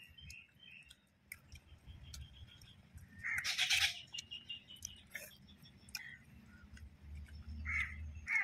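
Birds chirping faintly in the background, with quiet clicks of people eating by hand from banana leaves. About three seconds in there is a brief louder noise.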